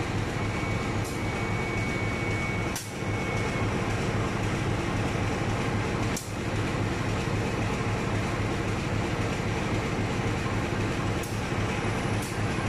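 Diesel locomotive engine idling steadily, a deep even hum, with a thin high whine over it for the first few seconds.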